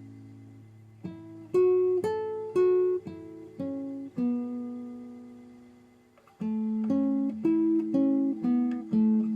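Background music: a slow melody of single plucked notes on an acoustic guitar, each note ringing out and fading. One note is held for about two seconds near the middle before quicker notes resume.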